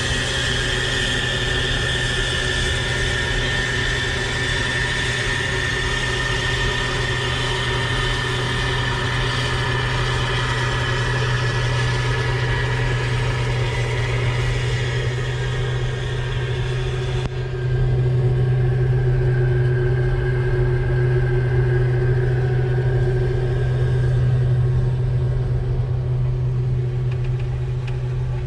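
Farm machinery diesel engine running steadily, a low drone with a high whine over it. About two-thirds of the way through, the sound changes abruptly: the whine fades and the low drone becomes louder.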